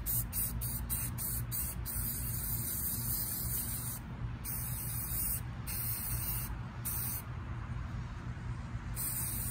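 Aerosol spray paint can hissing as paint is sprayed through a camo stencil. It starts as rapid short spurts, about five a second, then gives way to several longer bursts of up to a couple of seconds.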